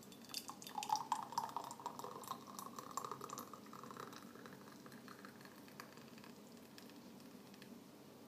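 Thick apricot jam bubbling at the boil in a Thermochef bowl. Quick pops and clicks come thickly for the first few seconds, then it settles to a fainter steady bubbling.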